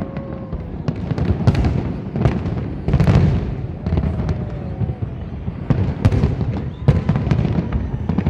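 Large fireworks display: aerial shells bursting in a continuous, irregular series of sharp bangs over a low, rolling rumble, with faint whistling tones at times.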